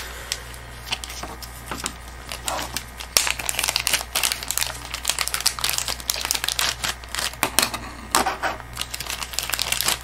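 Clear plastic zip bag crinkling and rustling as it is handled and opened, a run of irregular crackles that grows busier about three seconds in.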